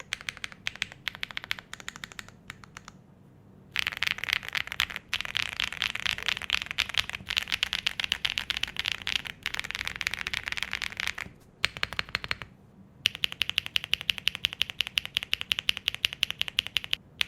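Typing on a Zoom75 mechanical keyboard with heavy tactile switches, a polycarbonate plate and PBT keycaps. A few scattered keystrokes lead into a fast run of typing from about four seconds in. After a short break near the twelve-second mark comes a run of quick, evenly spaced key presses.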